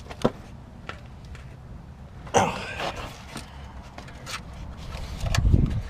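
Handling noises while the new antenna mount is worked into the truck's fender: scattered light clicks, a short scrape about two and a half seconds in, and a run of low thumps near the end.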